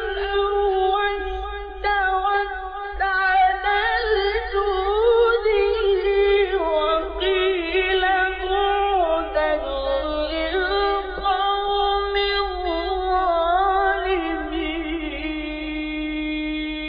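A male reciter chants the Quran in the melodic mujawwad style, drawing the words out in long ornamented runs. Near the end he settles into one long held note. A steady low hum from the recording lies beneath the voice.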